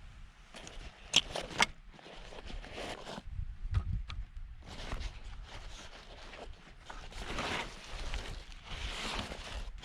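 Gear being handled by hand: two sharp clicks about a second in, then irregular rustling and scraping, likely the antenna wire being worked off its winder.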